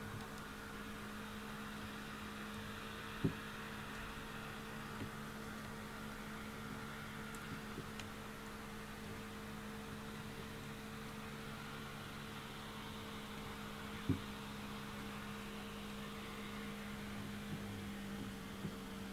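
A steady low hum with a constant hiss behind it, broken by two sharp clicks, one a few seconds in and one about two-thirds of the way through.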